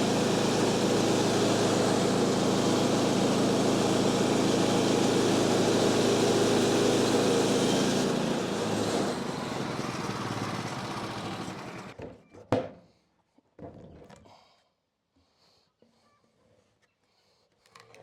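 Woodland Mills HM126 band sawmill's engine running steadily. It eases off about eight seconds in and stops abruptly about twelve seconds in, followed by a few sharp knocks.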